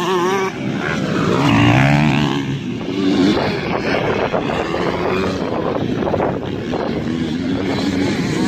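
Several motocross dirt bikes' engines revving up and down as they race past, the pitch rising and falling with each throttle change; loudest about two seconds in.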